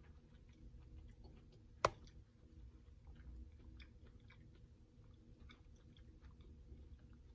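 Faint chewing and small clicks of a metal spoon scooping in a glass bowl of cooked vegetables, with one sharp clink about two seconds in.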